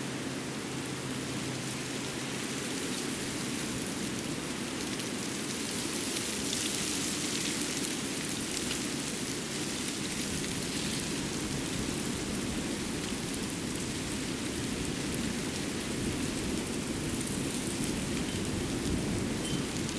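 Steady outdoor ambience of a snowy winter forest: an even, rain-like hiss with a few faint scattered ticks, swelling slightly a few seconds in.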